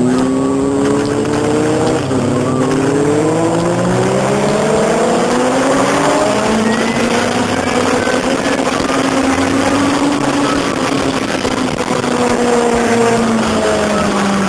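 Sport motorcycle engine heard from the rider's seat, revving up hard with a gear change about two seconds in and climbing again. About six seconds in it eases off, then runs at a lower, steady pitch and drops slightly near the end, with steady wind rush throughout.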